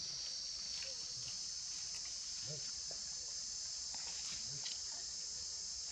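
Steady high-pitched insect chorus droning without a break, with a few faint soft rustles and taps beneath it.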